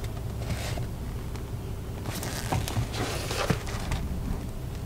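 A leather sneaker being handled and turned over in the hand: light rustles and small taps, a few of them about two to three and a half seconds in, over a steady low hum inside the car.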